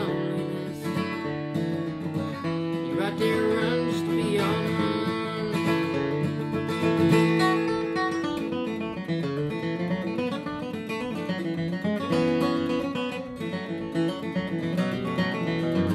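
Bourgeois Vintage D steel-string dreadnought acoustic guitar playing an instrumental break, with no singing.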